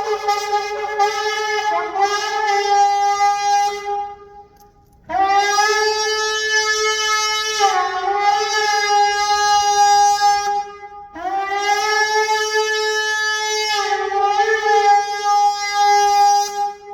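Gemsbok (oryx) horn shofar blown in three long blasts, each scooping up in pitch at the start and then held on a bright, buzzy tone, with short breaks in the note during the first blast.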